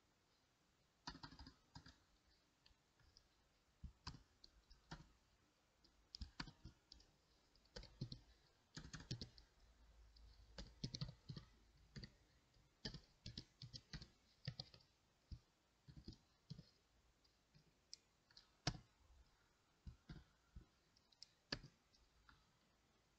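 Faint clicking of computer keyboard keys being typed, in irregular bursts of keystrokes with short pauses between.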